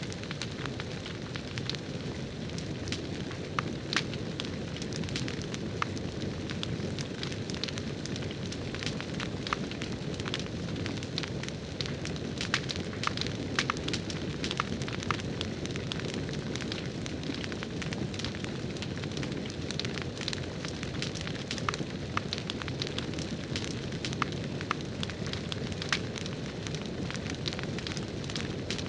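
Crackling campfire sound from the 'Firewood Home' campfire toy: a steady low rushing with frequent sharp, irregular pops and crackles throughout.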